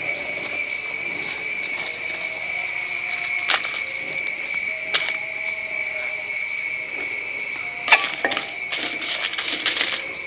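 A steady high-pitched drone with overtones, over sparse clinks of utensils on a stainless steel kadai; about eight seconds in comes a sharp clatter and a run of clinks as dried red chillies go into the pan and are stirred with a wooden spatula.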